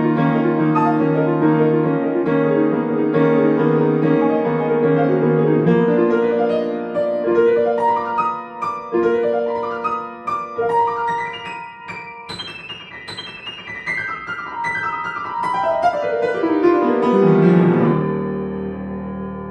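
Grand piano played solo: held chords, then quicker notes climbing into the high register, and a fast run falling from the treble down to a low chord that is left ringing near the end.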